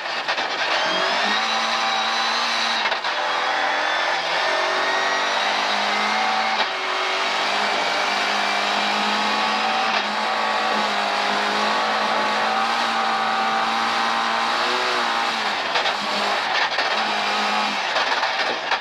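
Volvo 740 rally car's engine pulling hard under full throttle, heard from inside the cabin, its note broken briefly at each upshift and dropping near the end as it slows for a bend. Tyre and gravel noise run underneath.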